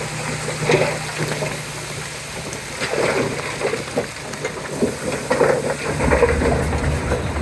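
Komatsu D31P crawler bulldozer working. Its diesel engine drops off at the start, leaving scattered clanks and squeaks from the tracks, and comes back strongly on a lower, heavier note about six seconds in.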